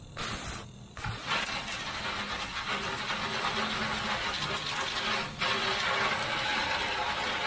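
Garden hose nozzle on its jet setting blasting water into a metal charcoal grill: a steady hiss of spray spattering on the metal. A short first burst comes at the start, then the spray runs on from about a second in, with a brief break about five seconds in.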